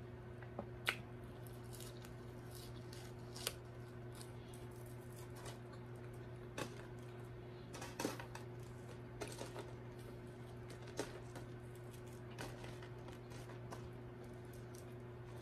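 Soft, scattered clicks and crackles of someone chewing french fries and picking them up by hand from a pile, over a steady low hum.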